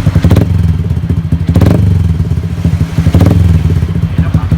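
Motorcycle with an aftermarket exhaust idling with a rapid even pulse, blipped briefly three times, at about the start, near the middle and about three seconds in.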